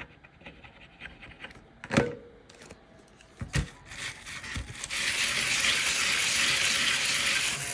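Small handheld desk vacuum switched on about five seconds in and running with a steady hiss as it sucks up scratch-off shavings from a card. Before it starts, a few light knocks as the card and tools are handled.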